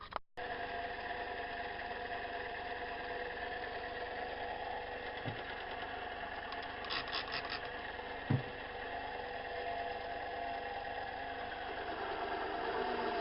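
Metal lathe running steadily, a motor hum with a few fixed tones, broken by a couple of light knocks and a short burst of ticks.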